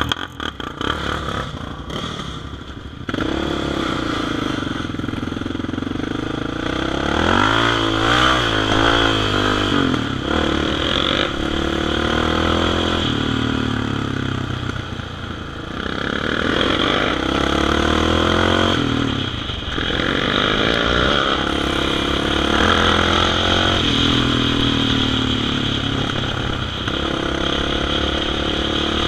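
Quad bike (ATV) engine heard from on board while riding, its revs rising and falling again and again as the throttle is worked. It gets louder about three seconds in as the quad speeds up.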